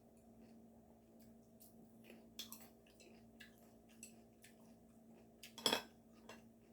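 Quiet eating sounds: chewing with scattered small clicks of utensils and dishes, and one sharper click about five and a half seconds in, over a steady low hum.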